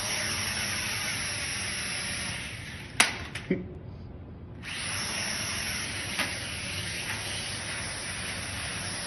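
Sharper Image toy quadcopter's small motors and propellers buzzing steadily. About three seconds in there are two sharp knocks as it hits something. The buzz drops away for about a second, then comes back up to full.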